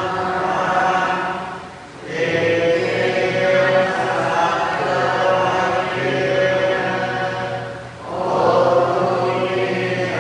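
Buddhist devotional chanting by many voices together in unison, in long sustained phrases that break briefly twice, about two seconds in and again about eight seconds in.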